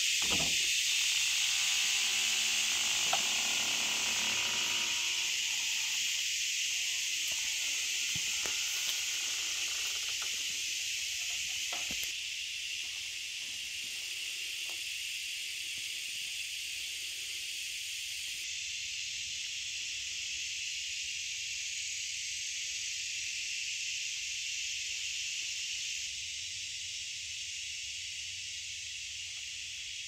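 Steady, high-pitched chorus of insects throughout. In the first few seconds a wooden barn door creaks as it is pulled open.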